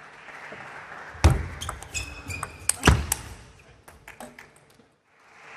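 Table tennis ball clicks and pings off bats, table and floor as a rally ends, with two loud thumps about a second apart, over a steady murmur in a large hall. The sound drops out briefly near the end.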